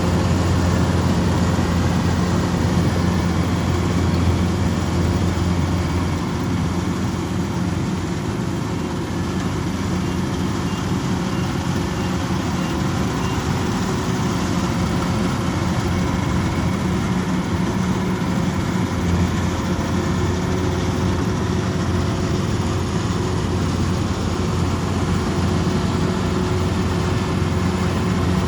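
Kubota DC-105X rice combine harvester's diesel engine running with a steady deep drone. The drone eases slightly about six seconds in and picks back up near twenty seconds.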